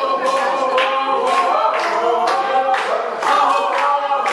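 A group of people singing together without instruments, clapping in time about twice a second.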